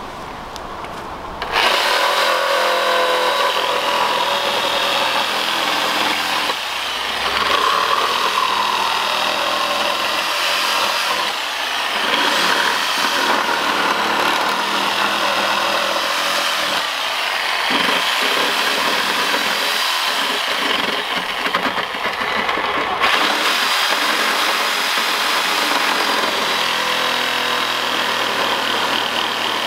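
Corded electric saw running and cutting into a wooden pallet slat, starting about a second and a half in and running on continuously, its pitch shifting as the blade works through the notch.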